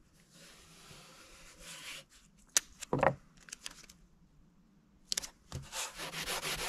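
Something rubbing over wood: a soft hiss at first, a few knocks and clicks partway through, then quick, steady rubbing strokes from about five and a half seconds in.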